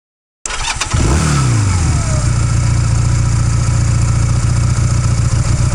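Motorcycle engine starting: a few quick clicks about half a second in, then the engine catches with a short rev whose pitch falls as it settles into a steady idle.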